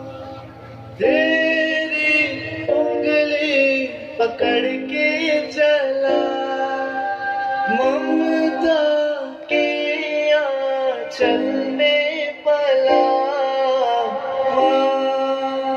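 Music from a recorded Hindi song: a melodic passage of long held and sliding notes, swelling up about a second in.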